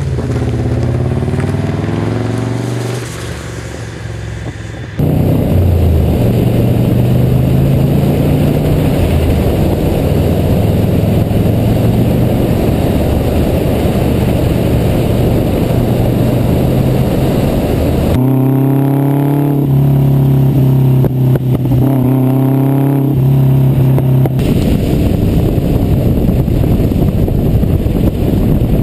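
Subaru Legacy B4 RSK's twin-turbo 2.0-litre boxer engine through a straight exhaust pipe with a single rear muffler, accelerating hard and revving, its pitch climbing several times as it pulls through the gears. Much of it is heard from a camera mounted on the moving car, with steady wind and road noise under the exhaust, and the sound changes abruptly at cuts between shots.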